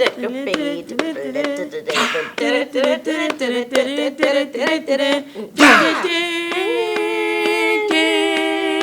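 A cappella vocal music: quick, rhythmic sung syllables with sharp mouth clicks, then a long held note from about halfway through.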